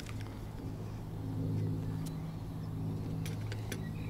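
A steady low engine-like hum of a few held tones, growing a little louder about one and a half seconds in. A few light clicks come in the second half.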